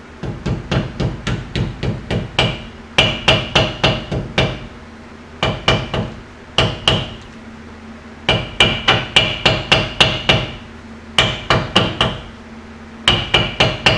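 Hammer tapping a new pinion seal into a differential housing, gently around its edges: sharp metal taps in quick runs of several strikes, about three a second, with short pauses between runs and each tap ringing briefly.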